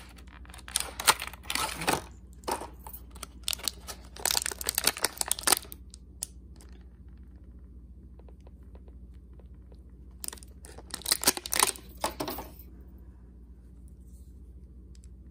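Clear plastic packaging of a ballpoint pen set crinkling and crackling as it is handled and opened, in three bursts: about a second in, from about four to five and a half seconds, and from about ten to twelve seconds.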